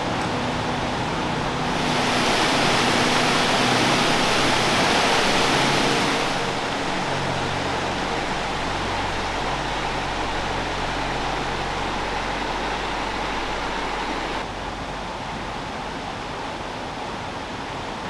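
Rushing mountain river water, a steady noise that grows louder and brighter for a few seconds about two seconds in and drops abruptly in level about three-quarters of the way through.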